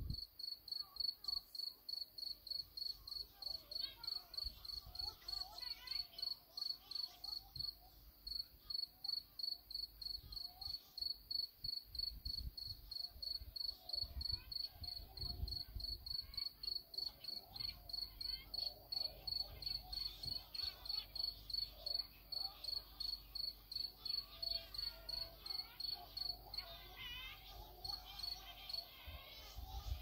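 Cricket chirping at night in a steady high-pitched rhythm, about two to three chirps a second. Fainter wavering calls of Cory's shearwaters sound underneath.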